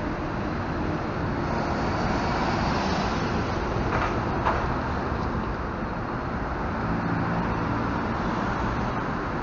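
Diesel engine of a Mercedes-Benz double-decker coach running as it pulls slowly past close by, with a brief hiss and a click partway through.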